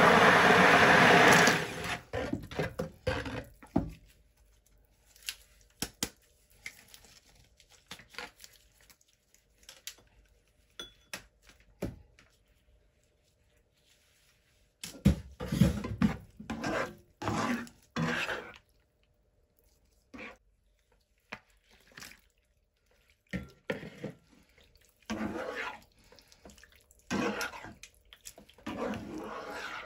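A stick blender running in a pan of thick curry sauce, cutting off about a second and a half in. In the second half, bursts of wet squelching and scraping as a spoon stirs chicken pieces through the thick sauce in a nonstick pan.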